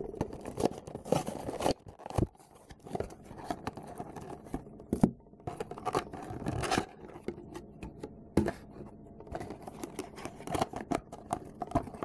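Trading-card starter deck packaging being worked open by hand without scissors: irregular rustling, crinkling and tearing with scattered clicks and scrapes.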